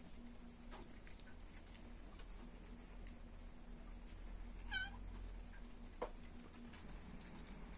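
A cat gives one short meow about five seconds in, over a low steady background hiss, with a faint click a second later.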